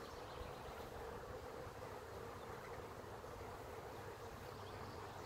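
Faint, steady hum of a honey bee colony buzzing over the open top bars of a hive.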